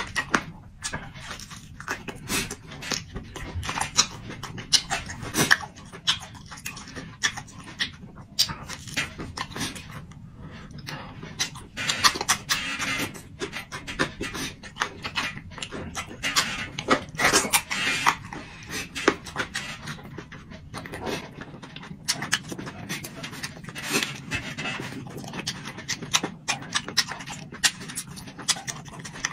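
Close-up eating sounds: a man chewing meat with his mouth open, with many short wet smacks and mouth clicks and audible breaths between bites.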